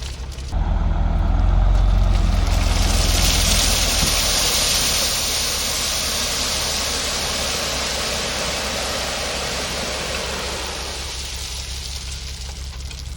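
Diesel dump truck engine running steadily while gravel pours out of the raised bed with a rushing hiss. The hiss builds about two seconds in and slowly tails off.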